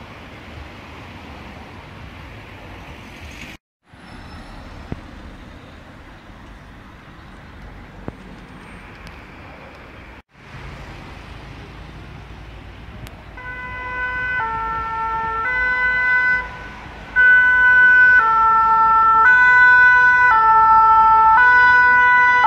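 City traffic noise with two brief cuts. About halfway through, a French two-tone emergency siren starts, stepping between a high and a low note about once a second. It grows much louder as a fire-brigade rescue van approaches.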